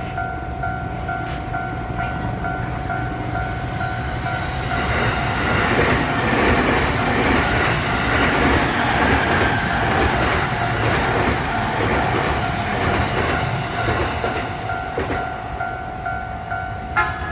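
Level-crossing warning bell ringing in a steady repeating pattern while an electric train passes. The train's running noise and wheel clatter over the rail joints swell about five seconds in, nearly drown the bell, and die away again near the end.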